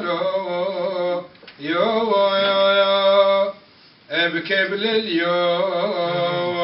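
A man's solo voice chanting a text read from a book, in long held notes that waver slowly in pitch, breaking off briefly for breath about a second in and again about three and a half seconds in.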